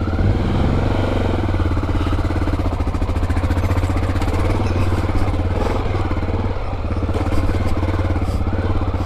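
Honda XR650L's air-cooled single-cylinder engine running at low revs as the dual-sport motorcycle is ridden slowly over a couple of dirt divots, its pitch rising and falling slightly.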